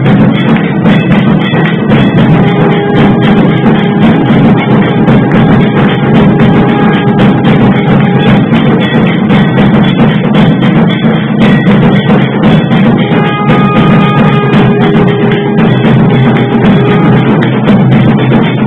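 Loud procession band music: dense, continuous drumming with long held melody notes over it.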